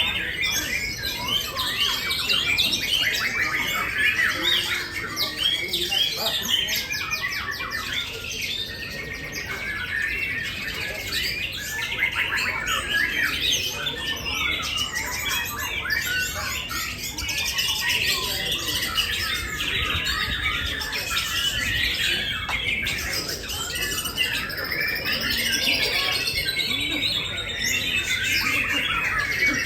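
Many songbirds singing at once in a dense, unbroken chorus of overlapping chirps, trills and whistles, the birds competing against each other during a judged round.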